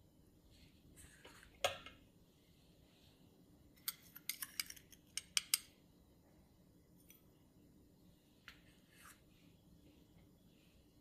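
Metal spoon clinking against small glass bowls while scooping and adding seasoning: one clear clink, then a quick run of about ten light clinks a couple of seconds later, with a few faint taps after.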